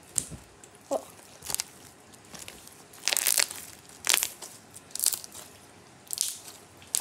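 Homemade chocolate-brown slime being stretched, pressed and squeezed by hand, giving a series of short crackling, squelching pops, about eight in all, with a longer cluster about three seconds in.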